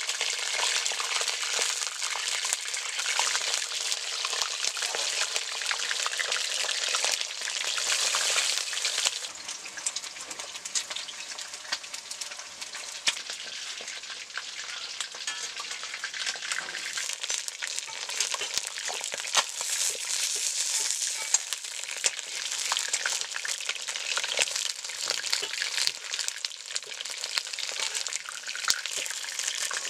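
Chicken leg pieces frying in hot oil in an iron wok, a steady sizzle and crackle of spattering oil. It is louder for the first nine seconds and then settles lower, with scattered sharp ticks.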